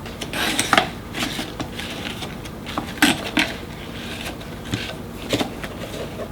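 Kitchen utensils knocking and scraping against a bowl or dish in a series of irregular clinks and short scrapes, the sharpest about a second in and again about three seconds in.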